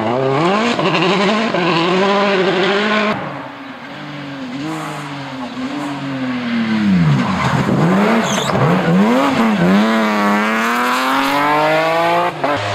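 Rally car engines at full throttle on a gravel stage, the engine note climbing and dropping back with each gear change. About three seconds in the sound cuts to another car, its engine rising and falling through several shifts and then climbing steadily near the end.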